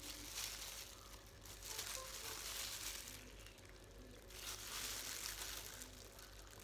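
Disposable plastic gloves crinkling as the hands squeeze lime halves in a metal hand-press lime squeezer, faint, in several stretches of a second or so.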